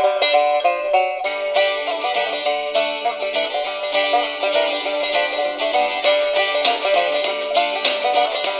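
A song with quick picked notes playing through the RunningSnail MD-090 emergency radio's small speaker, received from a home transmitter as an audio test. The sound is thin, with no bass.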